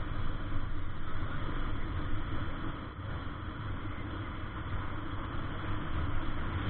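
Steady rumble of wind and road noise on the microphone of an action camera riding a mountain bike downhill on asphalt.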